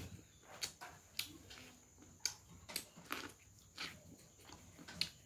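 Close-up eating sounds of someone biting kernels off a cob of boiled corn and chewing: irregular sharp crunches and wet mouth clicks.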